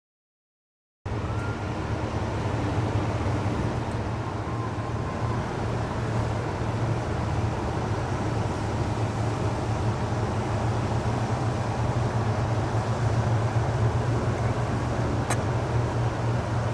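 Motorboat engine running steadily at speed, a low hum with the rush of water from its wake; it cuts in suddenly about a second in.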